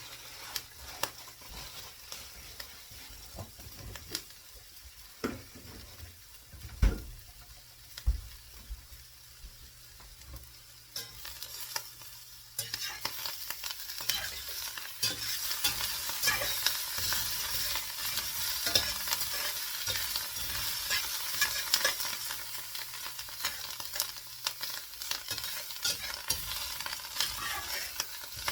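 Potato, mushroom, onion and ham omelette frying in a pan: a steady sizzle broken by scattered clicks and a few sharp knocks, the loudest about seven seconds in. About twelve seconds in the sizzle suddenly grows much louder and stays so.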